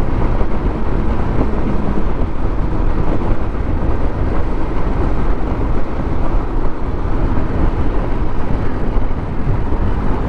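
Steady wind rush and road noise from riding a TVS scooter at about 60 km/h on the highway, even and unbroken.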